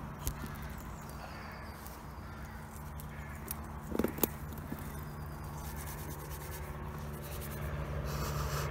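Low, steady drone of a distant engine, growing louder near the end. About four seconds in come a few brief rustles and snaps as bankside plants are picked, and a soft sniffing near the end as the leaves are smelled.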